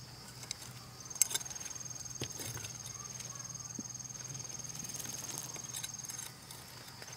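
A steady, high-pitched insect trill with a fine, fast pulse. It starts about a second in and cuts out near the end, with a few faint clicks.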